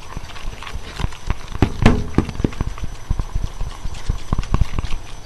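A straw stirring a mix of glue and hand soap in a bowl, knocking and clicking against the bowl in rapid, irregular taps.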